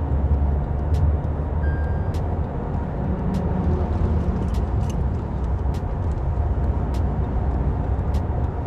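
Cabin noise of a 2021 Tata Safari with its 2.0-litre Kryotec diesel, driving at road speed: a steady low rumble of engine, tyres and wind.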